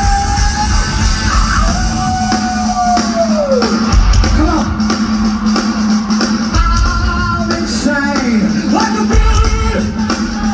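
Live heavy rock band playing loud, with a singer holding long notes, one of them sliding down in pitch. The kick drum and bass hit hard in several short stretches.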